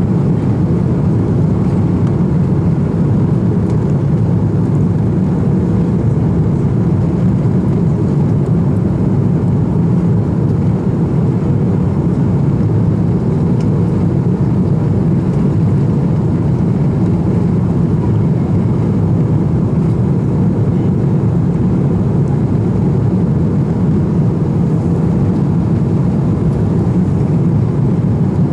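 Airbus A330-200 cabin noise on final approach with flaps extended: engines and airflow in a steady, deep rumble that stays even throughout.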